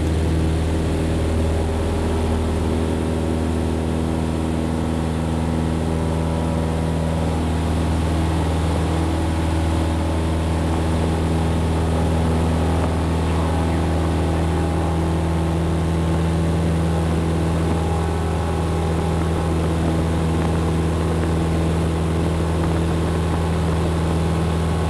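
Cessna 172 Skyhawk engine and propeller at takeoff power during the takeoff roll and climb-out, heard from inside the cabin as a loud, steady drone.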